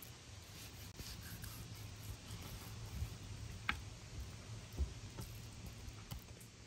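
Kitchen knife slicing raw red meat on a wooden cutting board: faint cutting and rubbing with a few light knocks of the blade on the board, two of them a little sharper midway.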